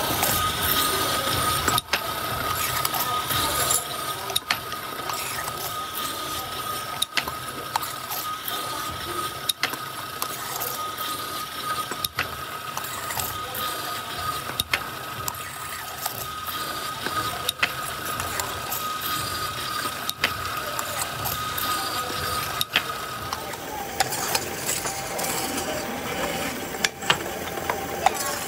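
Motor-driven spinning machine for seaming oil filter cans, running with a steady whine and mechanical rattle while a can turns under its seaming rollers. Sharp knocks come every two to three seconds, and the whine drops to a lower pitch near the end.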